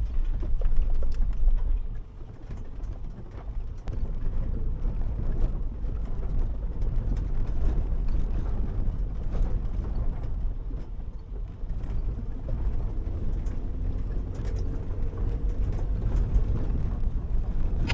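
Cab sound of a Toyota 80 Series Land Cruiser driving a rough dirt trail: a steady low engine and tyre rumble with irregular knocks and rattles as the truck jolts over rocks.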